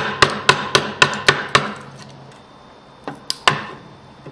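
A wood chisel is being struck to chop out a notch in a softwood 2x2. There are about seven sharp knocks at roughly four a second, then a pause of about a second and a half, then three quicker knocks near the end.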